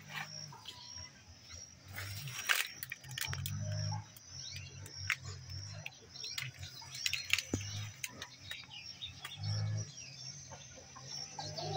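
Several small birds chirping and calling, with short sharp clicks among the chirps. A thin steady high tone runs beneath them, and a low rumble swells and fades a few times.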